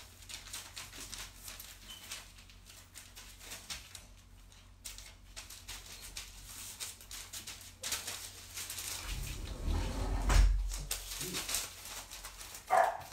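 Scattered rustles and small clicks, with a dull low thump about ten seconds in. A dog starts barking near the end.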